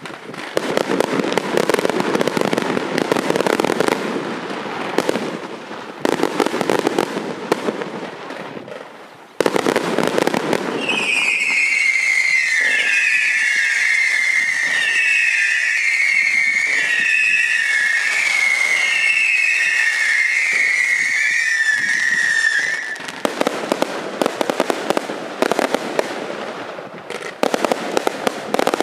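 Daytime colored-smoke fireworks going off in dense, rapid crackling volleys. From about ten seconds in, a chorus of shrill, wavering whistles screams over the crackle for some twelve seconds, then the dense crackling returns.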